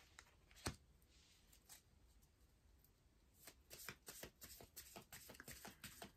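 A deck of tarot cards being handled and shuffled by hand: one sharp tap a little under a second in, then a run of quick, soft card clicks from about halfway through.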